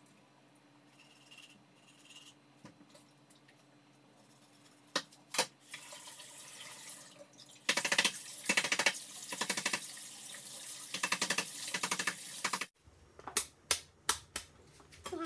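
Kitchen tap running into the sink with uneven splashing as hands rinse something under the stream, for about five seconds from near the middle, then cutting off suddenly. A few sharp clicks and knocks come before and after.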